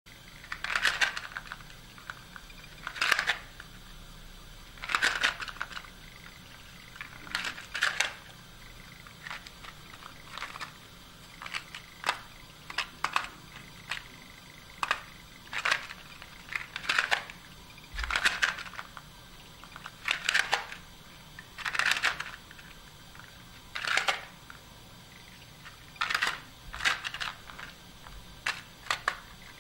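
Cardboard matchbox blocks of a homemade Jacob's ladder toy clacking against each other as they flip down the ribbon chain. Each flip is a short cascade of taps, repeating every one to two seconds.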